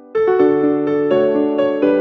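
Background music on electric piano: a chord struck just after the start, a few quick notes, and another chord near the end, each fading away.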